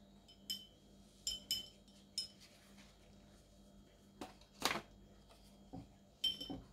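Light clinks on a glass water jar, several of them ringing briefly at the same pitch, with one louder, longer scrape about four and a half seconds in.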